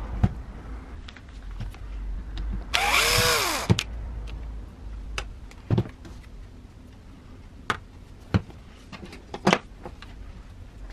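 A cordless drill-driver runs briefly, about a second, its motor whine rising and then falling. Sharp clicks and knocks from handling the grinder's plastic housing are scattered before and after it.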